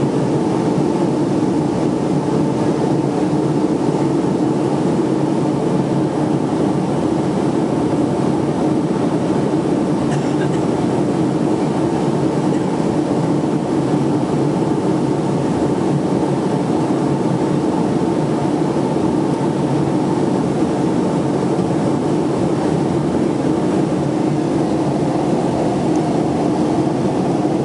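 Steady cabin noise of a Boeing 757-200 in flight: an even, constant rush of jet engines and airflow, heard from inside the cabin.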